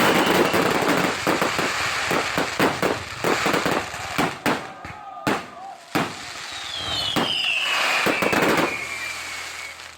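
Fireworks display: dense crackling and rapid bangs for the first few seconds, thinning to scattered single bangs, then a whistling firework falling in pitch from about seven seconds in.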